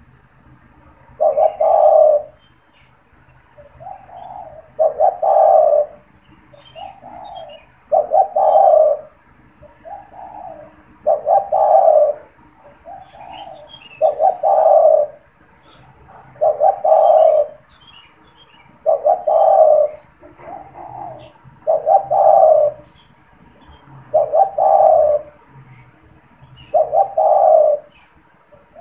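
Male spotted dove cooing in full song, the same phrase over and over about every three seconds: a softer lead-in coo followed by a loud, drawn-out coo, ten times in all. Faint chirps of small birds sound between the phrases.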